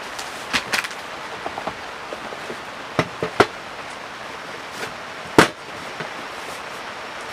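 Steady rain, with several sharp knocks or taps over it, the loudest a little past five seconds in.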